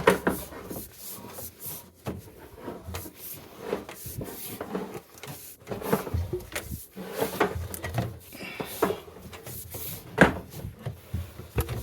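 Irregular knocks, scrapes and rubbing from equipment being handled by hand, with one sharper knock about ten seconds in.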